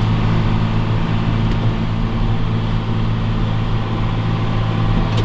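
Tractor diesel engine running at a steady speed: a constant low drone with no change in pitch.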